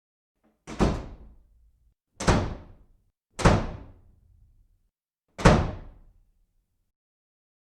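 Four heavy bangs, spaced a second or two apart, each dying away quickly, with dead silence between them.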